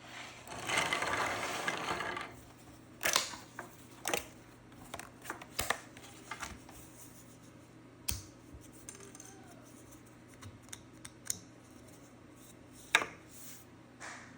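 Small hard plastic pieces clicking and knocking together as they are handled, with a short hiss about a second in.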